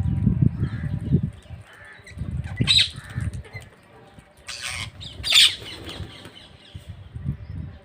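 Parrots flapping their wings close by in several rough bursts, with three harsh squawks in the middle, the last the loudest.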